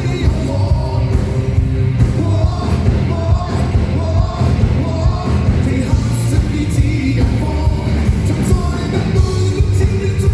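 Live singing over loud amplified backing music, a pop song with a heavy, steady bass.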